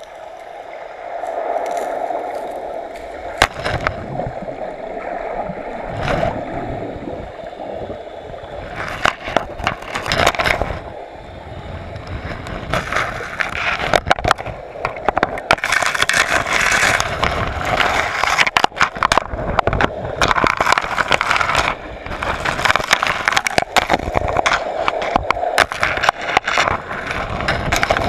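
Underwater sound picked up by a GoPro inside its waterproof housing: a muffled, steady rush of water sloshing and gurgling around the case, with frequent sharp knocks and clicks that grow busier and louder from about nine seconds in.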